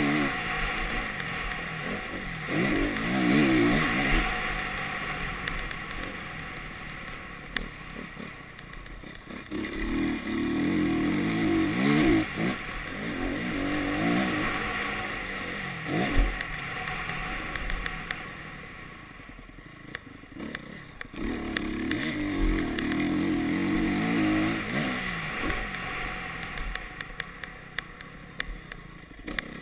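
Honda CRF single-cylinder four-stroke motocross bike being ridden hard, its engine revving up and dropping back several times as the throttle opens and closes between corners, with a few sharp knocks from the rough track.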